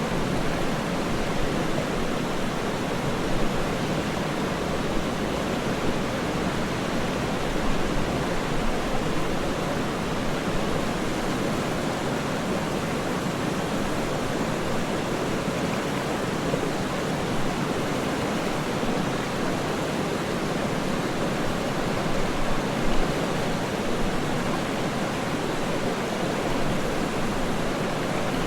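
Waterfall rushing steadily: an even, continuous roar of falling water with small flickers of splashing.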